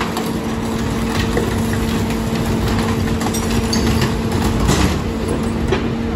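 Mack rear-loader garbage truck's diesel engine idling with a steady hum, under scattered knocks and clatter of wood demolition debris and a steel dumpster cart being wheeled up to the hopper.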